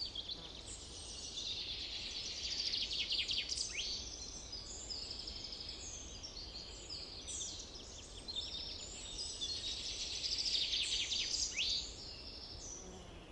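Summer forest ambience: several birds singing at once, overlapping songs and rapid trills that swell twice, over a faint steady low rumble.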